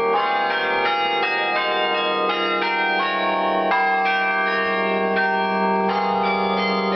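Carillon bells played from the keyboard: a tune of overlapping bell notes, several strikes a second, with a low bell tone ringing on underneath.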